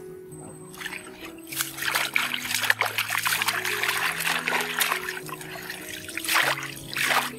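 Shallow muddy ditch water splashing and sloshing as a bamboo fish basket and hands are worked through it, starting about a second and a half in and stopping just before the end, over steady background music.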